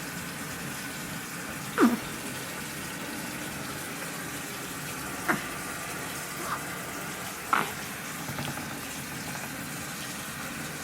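Baby hiccuping, about three short sudden hics a few seconds apart with a couple of fainter ones between, the first sliding down in pitch, over a steady background hiss.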